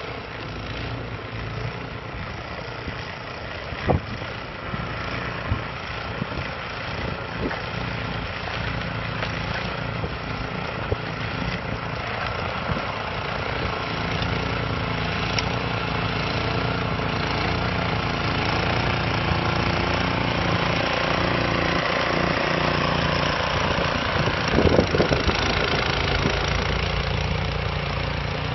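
Snowblower's small engine running steadily under wind noise, growing gradually louder, with a sharp knock about four seconds in and a few more near the end.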